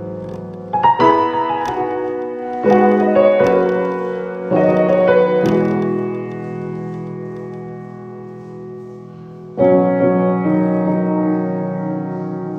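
Slow piano chords, struck every second or two and left to ring and fade, then one long-held chord before a fresh chord about ten seconds in.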